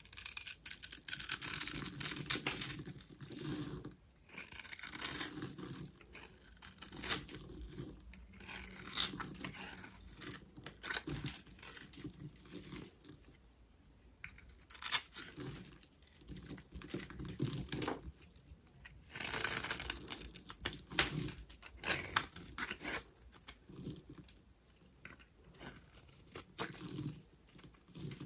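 A blade carving cubes into a bar of dry soap: crunchy, crackling cuts that come in bursts of a second or two with short pauses between them, and one sharp snap about halfway through.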